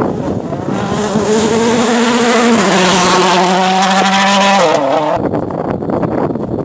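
Rally car passing on a gravel stage. Its engine holds a steady, loud note, drops in pitch as it goes by, then falls away. The sound changes abruptly about five seconds in to a rougher rush of noise with no engine tone.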